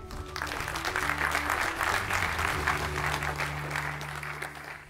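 Audience applauding over walk-on music; the clapping starts about a third of a second in and fades away near the end.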